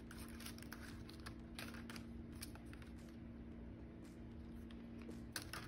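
Faint rustling and light tapping of paper and cardstock embellishments being handled and shuffled, with a couple of sharper taps near the end, over a low steady hum.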